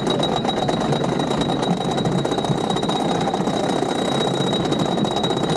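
Wooden roller coaster train being hauled up the chain lift hill: a steady mechanical rattle of the lift chain with rapid fine clicking, under a thin steady high whine.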